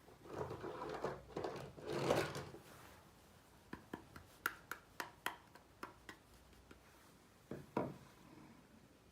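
Small miniature kitchen-set pieces being handled. A couple of seconds of rubbing and rustling comes first, then about a dozen sharp small clicks, then two quick knocks near the end.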